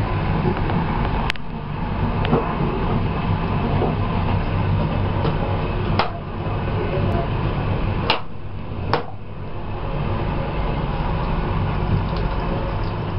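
Moving passenger train coach heard from inside its lavatory: a steady low rumble with a few sharp knocks and clicks.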